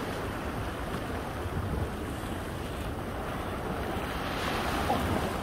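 Small waves washing and lapping over the edge of a rock ledge, a steady rush of water with wind rumbling on the microphone.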